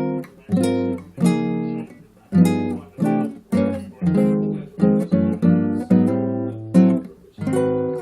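Acoustic guitar being strummed: a run of chords, each struck sharply and left to ring briefly, at about two a second in an uneven rhythm.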